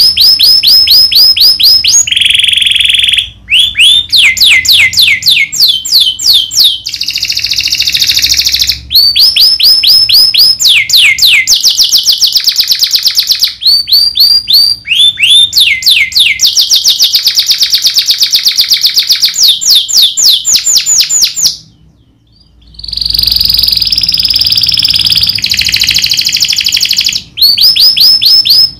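Domestic canary singing loud, sharp rolls: phrases of rapid, repeated downward-sliding notes that change speed and pitch from phrase to phrase, with some buzzier stretches. The song breaks off for about a second roughly 22 seconds in, then resumes.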